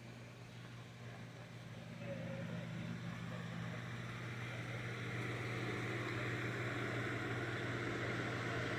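Steady low machine hum with a hiss over it, growing louder over the first five seconds and then holding steady.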